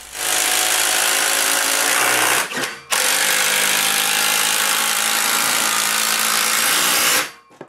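Cordless drill driving screws into wood, running steadily in two bursts with a short pause about two and a half seconds in.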